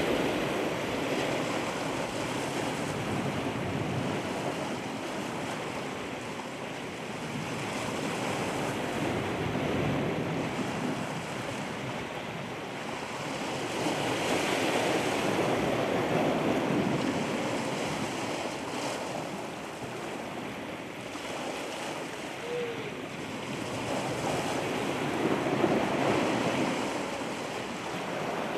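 Ocean surf: waves washing in and breaking, the sound swelling and ebbing every several seconds.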